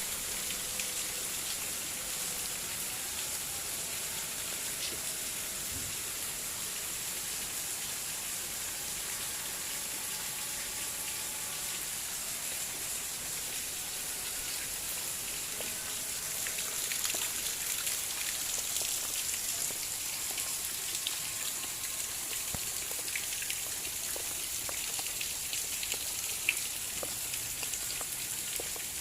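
Fairly heavy rain falling steadily, a dense hiss dotted with the ticks of individual drops, with one sharper tick near the end.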